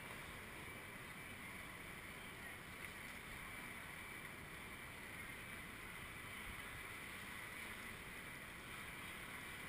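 Faint, steady city street ambience: a constant wash of distant traffic noise with no distinct events.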